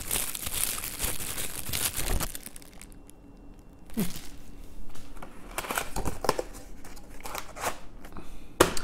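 Plastic wrapping crinkling against a trading-card booster box, a short lull, then the cardboard box being opened by hand, with scraping, flapping and sharp clicks of the cardboard lid.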